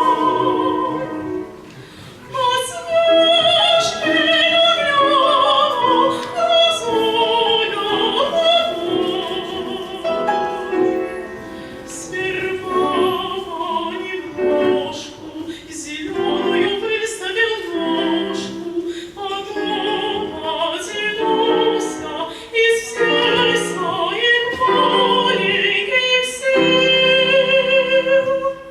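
Classical solo voice singing in operatic style with vibrato, accompanied by piano, ending on a long held note near the end.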